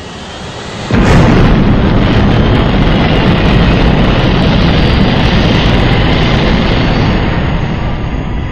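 Sound-effect explosion: a short rising rush, then a sudden loud blast about a second in that carries on as a long rumbling roar, slowly dying down.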